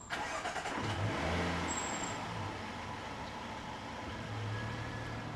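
A car engine running as the car drives off, with a steady rush of road noise that starts suddenly.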